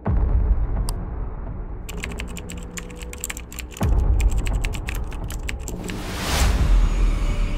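Rapid typing on a laptop keyboard, a quick run of key clicks starting about two seconds in and lasting a few seconds, over a low droning rumble. A whoosh swells and fades near the end.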